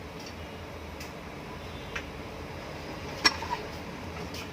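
A few light clicks and taps of ceiling fan motor parts being handled, with one sharp click a little over three seconds in, over a low steady hum.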